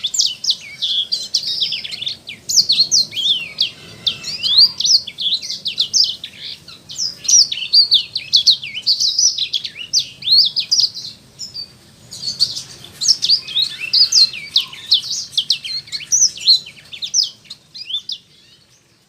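A small finch, the cage songbird called 'sanger' in Indonesia, singing a fast, continuous twittering song of quick, high chirps. The song pauses briefly about midway and fades out near the end.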